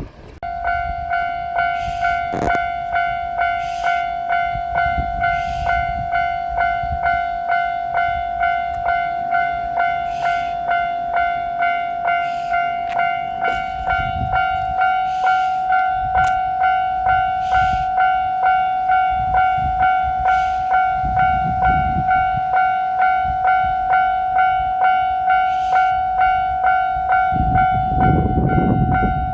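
Japanese level-crossing warning bell ringing its repeated "kan-kan" alarm in a steady, even beat of about two strikes a second, signalling that a train is approaching. It starts about half a second in, and a low rumble swells under it near the end.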